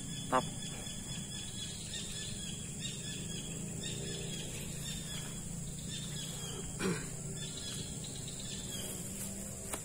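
Steady outdoor insect chorus, crickets or similar, with a constant high buzz and faint repeated chirping. Two brief vocal sounds stand out, one right at the start and one about seven seconds in.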